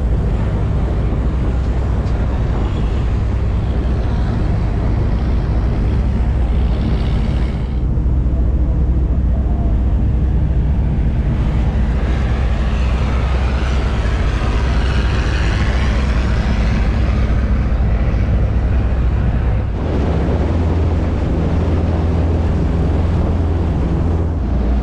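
A ferry boat's engine running with a steady low drone, mixed with rushing water and wind on the microphone. The sound changes abruptly at two points, and a hiss of water swells for a few seconds in the middle.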